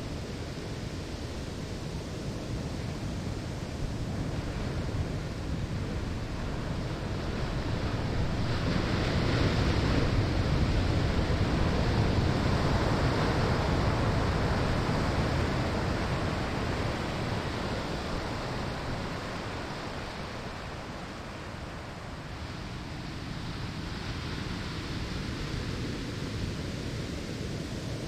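Ocean waves breaking on a sandy shore: a steady wash of surf that swells into a louder break about eight seconds in, then slowly ebbs away.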